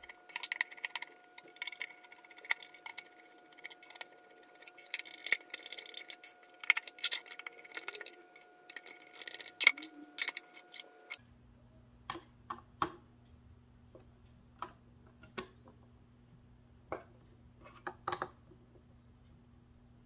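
Hand screwdriver working the small metal screws of a graphics card, with the clicking and ticking of the driver, screws and card parts. The clicks are dense for about the first half, then after a change of background they come as spaced single clicks.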